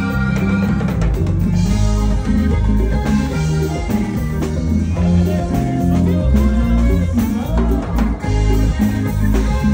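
Live norteño band music played loud over a PA system: a driving bass line and drum kit keep a steady dance beat under sustained melody lines.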